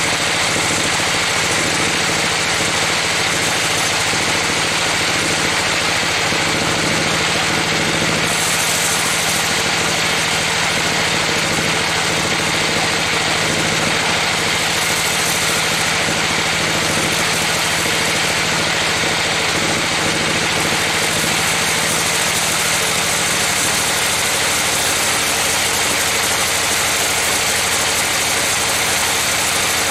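Band sawmill running steadily, its blade sawing lengthwise through a trembesi (rain tree) log: a constant machine drone with a hiss over it.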